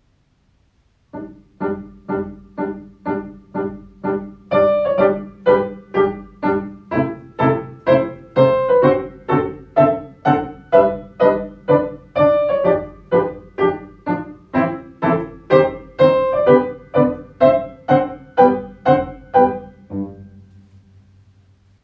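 Piano playing short, detached chords on a steady beat, about two a second: a children's eurhythmics tune meant for tapping movements. It starts about a second in and stops about 20 seconds in, leaving a low note fading out.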